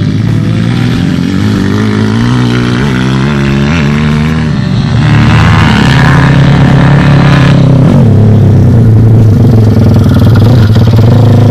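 Single-cylinder pit bike engine revving in a few quick rises and drops of pitch, then running louder and steadier from about halfway as the bike comes close, with a change in pitch near eight seconds in.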